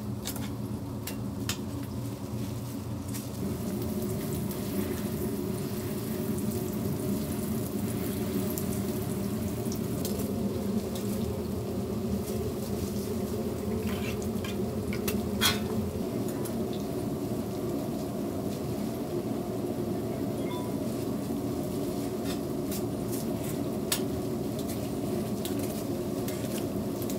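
Hotteok frying in margarine on a flat steel griddle, sizzling steadily over a low hum. Metal tongs click against the griddle now and then as the pancakes are turned, most sharply about halfway through and again near the end.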